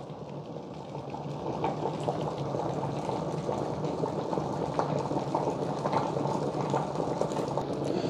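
Amazon Basics 1-litre stainless steel electric kettle at a rolling boil: water bubbling and rumbling steadily, building slightly over the first few seconds.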